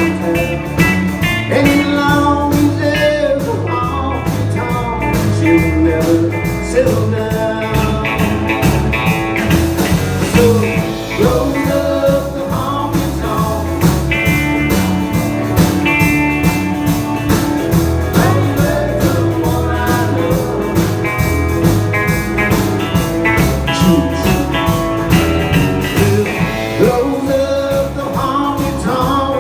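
A live band playing a blues-rock song with a steady beat.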